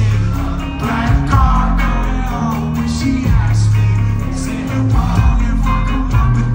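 A live rock band playing through a concert PA, heard from the crowd on a phone: electric guitar, bass and drums playing a pop-punk song.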